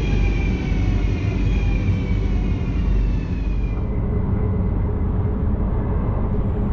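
Dutch passenger train passing with a steady low rumble and a slowly falling whine that fades out about four seconds in; the rumble carries on after it.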